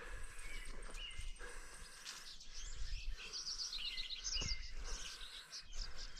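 Swallows twittering: many short, high chirps in quick runs, busiest about halfway through, over a low rumble.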